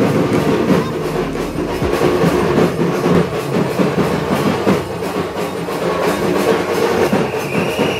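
Music over the dense, steady hubbub of a large crowd.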